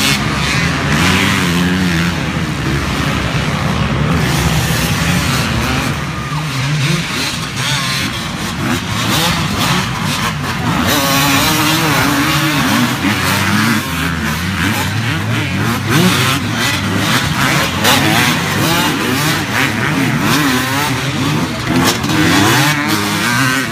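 Several motocross dirt bike engines revving up and down at once as the bikes race around the track, their engine notes overlapping and rising and falling throughout.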